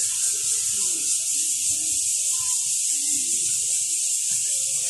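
A steady high-pitched hiss at an even level, with faint distant voices beneath it.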